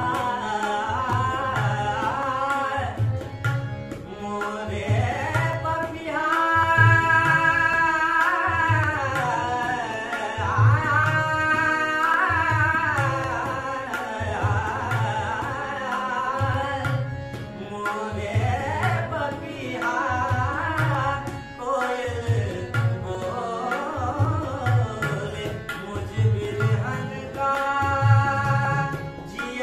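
Young male voice singing a Marathi semi-classical song (natyageet or bhavgeet style) with long, gliding held notes, accompanied by a harmonium and tabla keeping a steady rhythm with deep bass-drum strokes about once a second.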